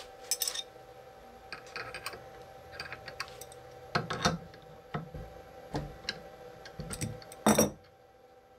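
Steel adjustable wrenches clicking and knocking against a CNC router's collet nut as it is loosened to extend the bit. The clicks are scattered and irregular, with a louder metal clatter near the end as a wrench is put down on the wooden board.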